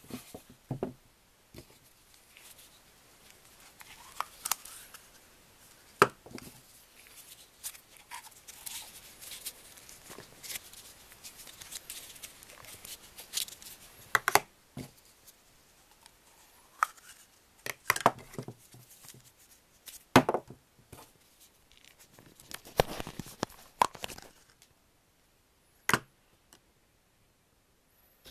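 Hard plastic toy pieces being handled: scattered clicks, taps and knocks as the plastic toy eggs and the hinged egg carton are opened, closed and set down. The handling stops a few seconds before the end.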